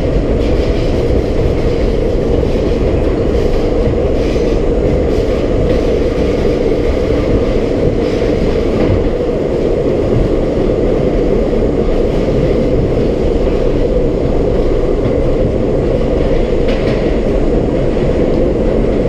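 R32 subway car running steadily through the tunnel, a constant rumble of wheels on rail and running gear heard from inside the car.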